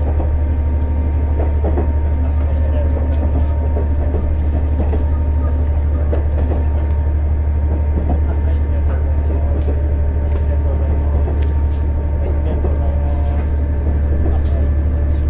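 KiHa 110 diesel railcar's engine running steadily under load as it climbs the long grade to Kuzakai pass, heard on board as a strong low drone. Occasional short clicks from the wheels on the rails come through it.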